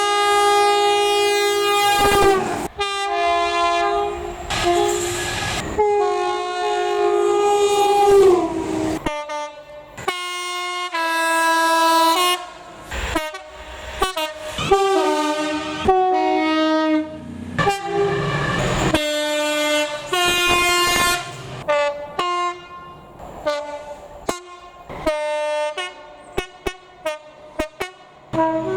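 Locomotive two-tone air horns played as a long sequence rather than a single warning. It opens on a held chord of both notes, then runs through many short blasts switching between the high and low tone, the toots getting quicker and shorter near the end.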